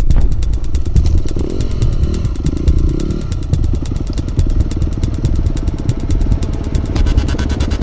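Off-road motorcycle engines running at low speed on a trail, with a rapid, even pulsing from the firing strokes under a heavy low rumble.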